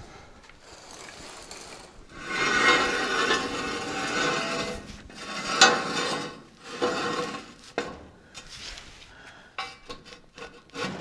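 Steel ratchet jack stand being set and adjusted under a car's chassis: a loud metallic scraping for a few seconds, a sharp clank about five and a half seconds in, then scattered smaller clicks and clanks.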